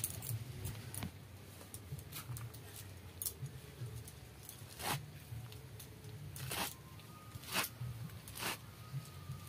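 Small knife slicing through a handful of bottle gourd leaves held in the hand, giving short crisp cuts at irregular intervals, with several stronger cuts in the second half.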